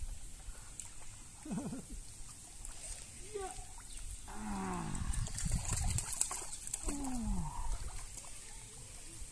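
Hooked fish thrashing and splashing at the water's surface, with several short falling pitched calls of about half a second each over it.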